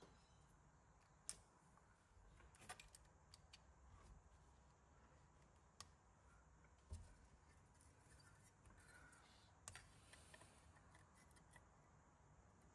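Near silence with a few faint, scattered clicks and taps of small metal and plastic parts of an RC model car chassis being handled and fitted together.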